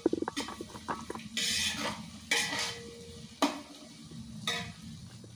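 Sliced onions frying in oil in a pot, stirred with a spoon: about five scraping strokes against the pot, roughly one a second.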